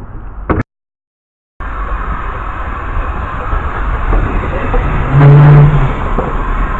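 Steady rumble of a moving train. It cuts out completely for about a second near the start, and a short low tone sounds about five seconds in.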